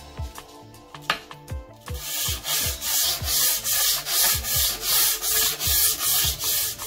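Steel chip breaker of a Stanley No. 4 hand plane rubbed back and forth by hand on sandpaper taped to a flat sheet: rhythmic rasping strokes, about two to three a second, starting about two seconds in. The sanding takes off surface rust and levels an uneven edge.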